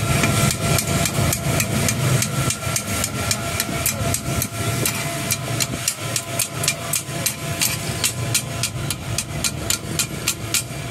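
Two metal spatulas chopping and scraping chicken on a steel flat-top griddle: a rapid, uneven run of sharp clacks of steel on steel.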